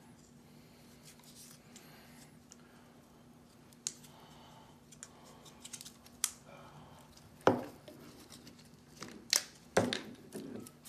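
Hands handling PVC union fittings and a roll of Teflon thread tape: soft rustling of the tape, then a few scattered sharp plastic clicks and knocks against the table, with a faint steady low hum underneath.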